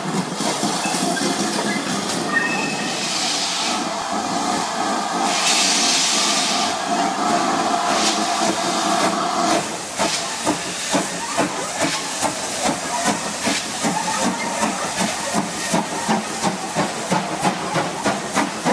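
Preserved steam locomotive hissing steam, with two louder bursts of steam release. About halfway through, a regular beat of exhaust chuffs comes in, about two a second, as the engine gets moving.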